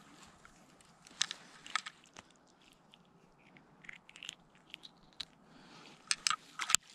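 Scattered clicks and crackles of hands handling a small hooked sunfish and fishing line close to the microphone while the hook is worked out, loudest in a quick cluster near the end.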